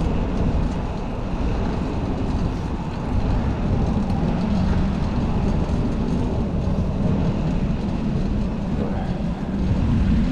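Steady low rumble of wind on the microphone and tyre and road noise from a moving fixed-gear bicycle.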